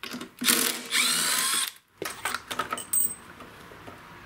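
Cordless impact driver with a 10 mm socket running for nearly two seconds, its whine rising as it spins a bolt out. Light clicks and knocks of parts being handled follow.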